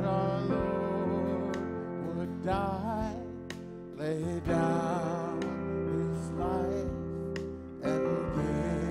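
Worship song: singing over held instrumental accompaniment, the voice wavering and gliding on its notes.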